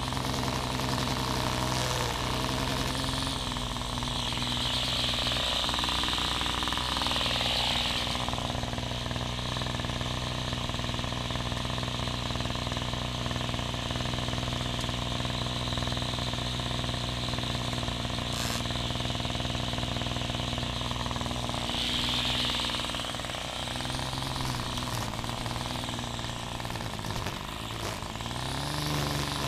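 Small petrol string trimmer engine running steadily, revving up briefly a few times, with its line cutting grass.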